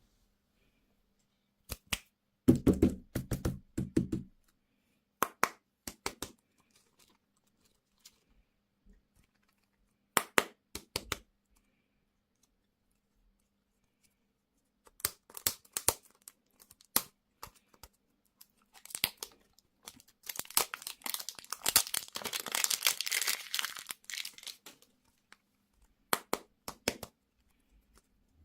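Candy and toy packaging crinkled and torn open in short crackling bursts, then a longer stretch of continuous crinkling and tearing in the second half.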